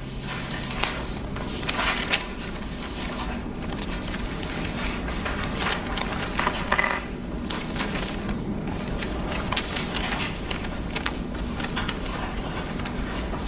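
Sheets of paper rustling and pages being turned, with scattered light clicks and knocks, over a steady low room hum.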